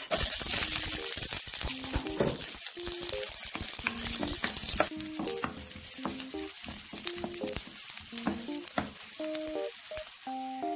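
Garlic cloves sizzling as they fry in oil in a stainless steel pan while a wooden spatula stirs them, with a few light clicks of the spatula on the pan. The sizzle is loudest in the first half and softens about halfway through.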